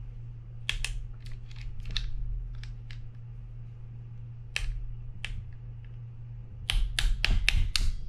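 Sharp metallic clicks and taps of a folding metal hand tool working against the parts of a Penn Spinfisher 5500SS spinning reel: scattered single clicks, then a quick run of about five near the end.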